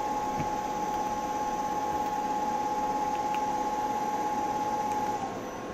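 Servo-driven spindle of a CNC vertical mill running at 1000 RPM, a steady whine over the hiss of its always-on cooling fan. About five seconds in, the whine drops in pitch and the sound gets quieter as the spindle slows toward a newly commanded 500 RPM.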